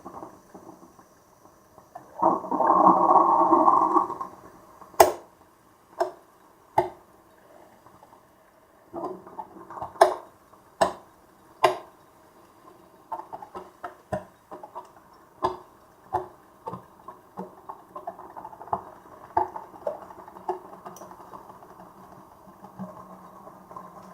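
Two coffee makers brewing: a gurgling, hissing spurt about two seconds in, then irregular pops and sputters, sparse at first and coming more often in the second half.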